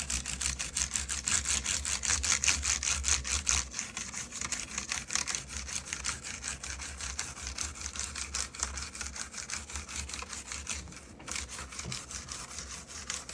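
A brush scrubbing a mechanical keyboard with quick back-and-forth strokes, a steady run of scratchy bristle rasps.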